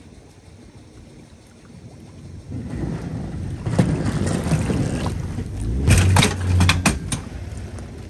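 Aluminum fishing boat driven up onto a submerged boat trailer under outboard power. The motor and the water wash build from about two and a half seconds in. A cluster of knocks and clanks comes around six to seven seconds in, as the hull rides up onto the trailer.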